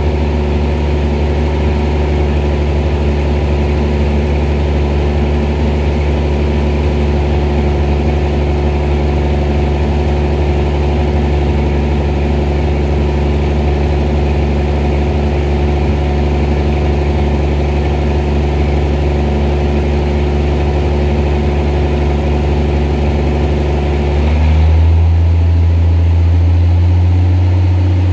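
Arrow A54 natural gas engine running steadily during its warm-up period. About 24 seconds in its pitch steps up and it gets a little louder as it comes up to running speed once the warm-up ends, then holds steady.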